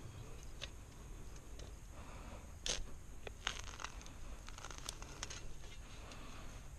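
Small AugTouf folding shovel's blade cutting into lawn turf: scattered scraping and tearing as it goes through grass and roots, with a few sharp clicks around the middle.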